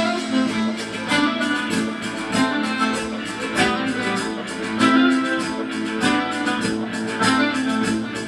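Guitar music with plucked and strummed strings, played as the video's soundtrack.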